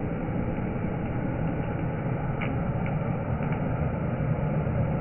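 Hair dryer blowing air into burning coal, a steady rushing drone of the dryer and the forced-air fire, with a few faint crackles around the middle.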